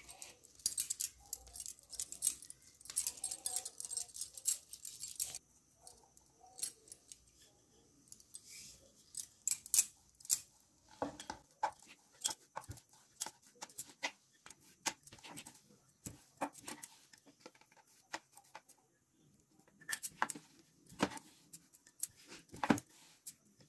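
Bangles clinking on the wrist and a wooden rolling pin knocking and rolling on a wooden board as bhatura dough is shaped and rolled out: a dense run of small clicks for the first five seconds or so, then scattered clicks and taps.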